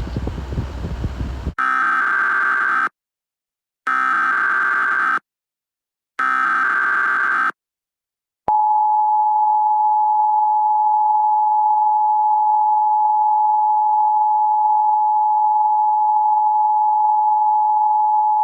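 Emergency Alert System tones. A second and a half of wind noise cuts off, then three identical bursts of SAME header data screech. About eight and a half seconds in, the steady two-tone EAS attention signal begins and holds.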